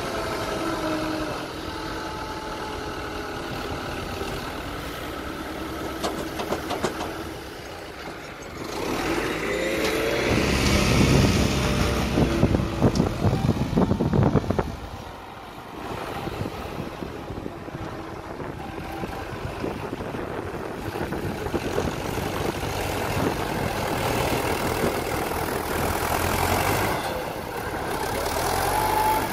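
Fiat 80-66 tractor's diesel engine running under load and revving as its front loader lifts and dumps manure, louder for a few seconds midway and then dropping off suddenly.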